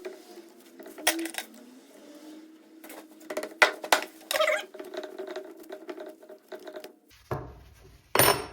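Small metal clicks and clinks of an Allen key unscrewing a screw inside the housing of a hydraulic directional control valve, with a couple of louder knocks near the end.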